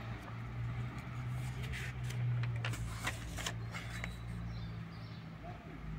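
Thin sketchbook paper being turned by hand, rustling and flicking several times as a page is turned over. Under it runs a low hum that swells about two seconds in and fades out near the end.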